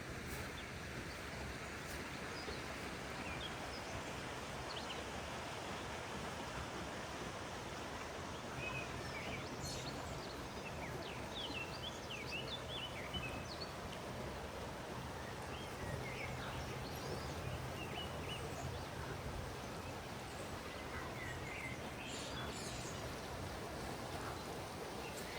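Small birds chirping, short high calls that come in little bunches, a few about a third of the way in and again near the end, over a steady rushing outdoor background noise.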